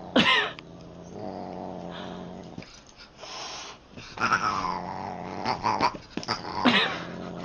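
A domestic cat meowing: a short call just after the start, a longer cry falling in pitch about four seconds in, and another short call near the end.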